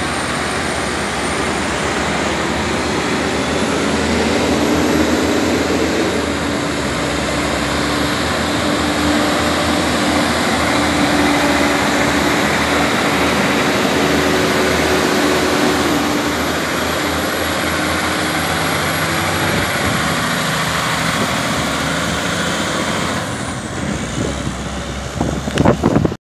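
Diesel engines of Kenworth T800 tanker tractor-trailers working uphill as the trucks pass one after another, with a steady engine drone and road noise. A few sharp crackles near the end, then the sound cuts off abruptly.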